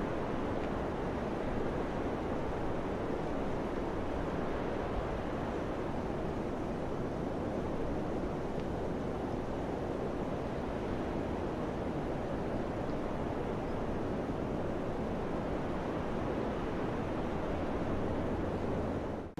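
Wind blowing steadily, an even rushing noise with no gusts or breaks, dipping briefly right at the very end.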